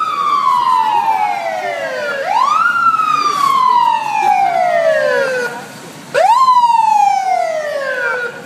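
Emergency vehicle siren wailing, each cycle rising quickly and then falling slowly over about three seconds. It cycles three times, with a brief drop in level just before the third rise, which comes back louder.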